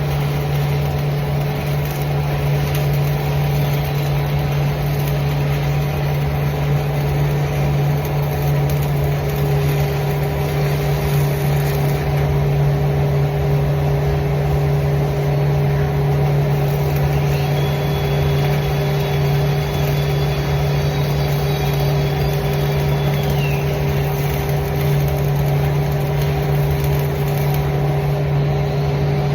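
A steady machine hum: a low buzz with a constant higher tone over an even rushing noise, unchanging throughout.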